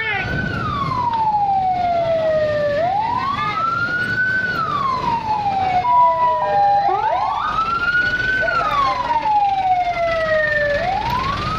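Fire engine sirens wailing, each cycle a quick rise and a longer fall, repeating about every four seconds, about three cycles in all. A fainter second siren wails alongside. A short two-note steady tone sounds near the middle.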